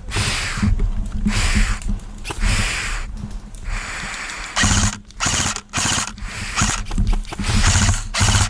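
ASG M15 electric airsoft rifle firing a string of short full-auto bursts, each a rapid buzzing rattle, with brief gaps between them and shorter, quicker bursts in the second half.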